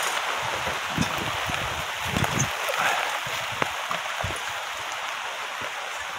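Steady rain falling on forest foliage, an even hiss, with a few low thumps near the microphone about one, two and four seconds in.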